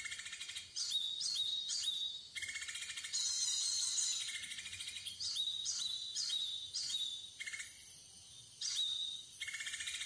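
High-pitched bird chirps in short phrases that repeat every few seconds in nearly the same pattern. This is the recorded bird call played from an MP3 lure under lime sticks to draw birds in.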